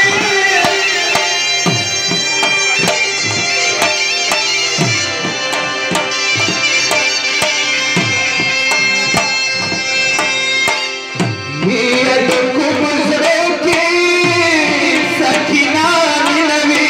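Dhol beating a steady rhythm under the held chords of harmoniums. A male voice comes in singing about two-thirds of the way through.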